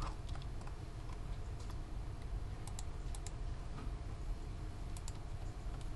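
Scattered clicks of a computer keyboard and mouse, with a small cluster about three seconds in, over a low steady hum.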